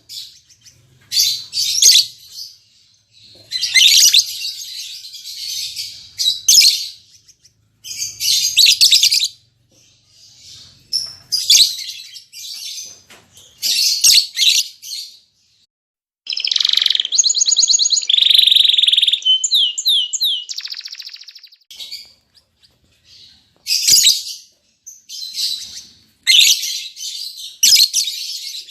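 Lovebirds chattering in shrill bursts of a second or two, with a longer run of rapid trills and whistles a little past the middle.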